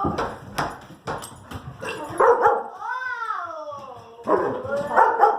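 Dog barking several times, with a long whine falling in pitch about three seconds in.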